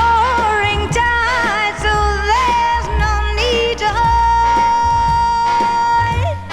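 1960s orchestral pop music playing from an original vinyl LP: a wavering melody line over a strong bass, with one long held note starting about two-thirds of the way through.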